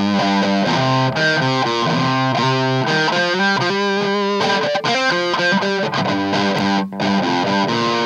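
Les Paul-style electric guitar with humbucker pickups played through an Audio Baron TG-30 30-watt amplifier on its crunch (distorted) setting: a busy run of single notes and riffs with a bluesy crunch. The playing breaks off for a moment near the end.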